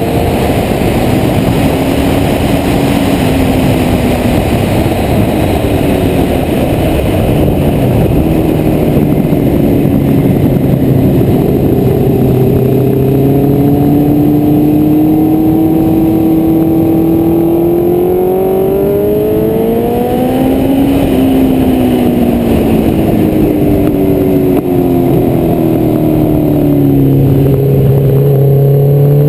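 Honda CBR1100XX Blackbird's inline-four engine under way, heard from on board with heavy wind noise over the microphone. The engine note climbs steadily for several seconds, drops sharply about two-thirds of the way in, falls away, and picks up again near the end.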